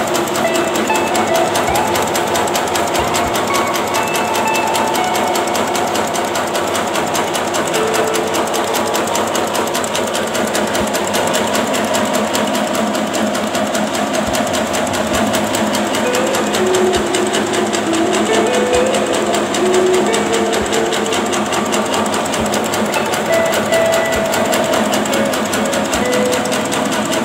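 Bakso meatball-forming machine running with a steady, rapid mechanical clatter. Music plays over it.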